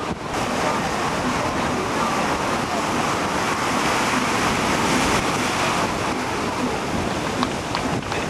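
Heavy ocean surf breaking and rushing, with wind buffeting the microphone. The roar swells a few seconds in, then eases.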